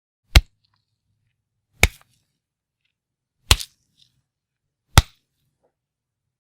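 Four fight-punch sound effects, each a sharp, deep hit, spaced about a second and a half apart; the third has a quick second knock right after it.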